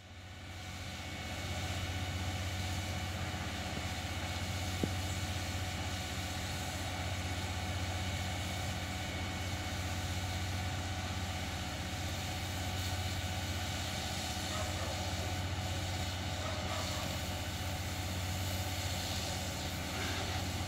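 Diesel engine of a JCB JS200N tracked excavator running steadily without revving, a deep even drone that rises in over the first couple of seconds.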